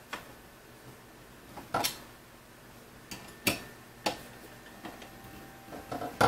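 About five light, separate metallic clicks and taps. They come from small steel screws and T-slot nuts being handled, and from a screwdriver driving a screw into a corner bracket on an aluminium extrusion frame.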